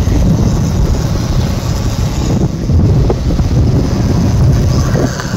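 Wind buffeting a phone microphone on a moving motorcycle, a loud steady low rumble with the bike's running noise underneath.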